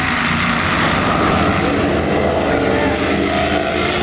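Offshore racing powerboat engines running hard as several boats accelerate past, their engine notes sliding up and down in pitch.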